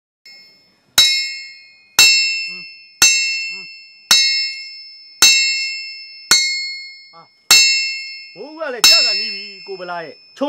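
Hammer striking metal eight times, about once a second, each blow ringing and dying away. Men's voices come in near the end.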